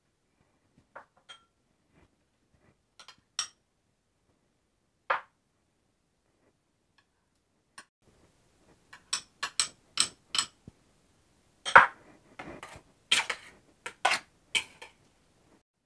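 Metal spoon clinking and scraping against a stainless steel mixing bowl and small glass prep bowls as chopped ingredients are tipped in and stirred into guacamole. A few single clinks at first, then a quicker run of clinks and scrapes over the last several seconds.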